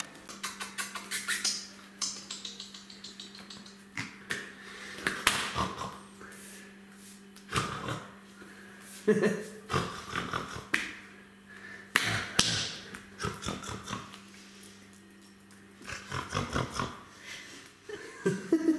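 Pomeranian puppy's claws clicking and scrabbling on a tiled floor in several quick bursts, over a faint steady hum.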